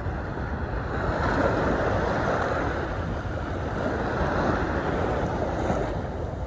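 Surf washing on the beach in slow swells, with wind rumbling on the microphone.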